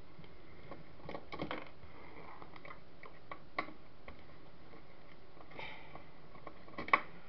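Faint clicks and taps of hands handling the camera's circuit board and screws, with one sharper click near the end, over a steady low hiss.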